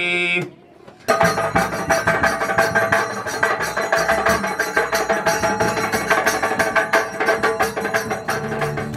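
A chanted Sanskrit mantra ends just after the start, and after a short pause music with fast, busy percussion starts about a second in.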